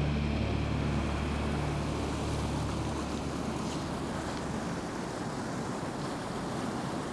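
Steady rushing of river current, with wind buffeting the microphone. A low steady hum underneath fades out about three and a half seconds in.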